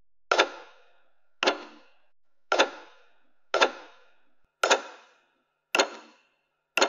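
Clock ticking loudly, about once a second: a row of sharp, evenly spaced ticks, each with a short fading tail.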